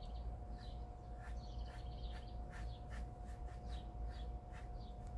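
Small birds chirping faintly in short, scattered calls, over a steady faint hum.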